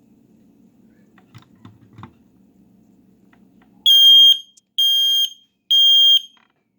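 Old Kidde smoke alarm going off in a test: three loud, high-pitched beeps about a second apart, starting about four seconds in, in the temporal-three alarm pattern, which shows the old alarm still works. Before the beeps there are a few faint clicks over a low steady hum.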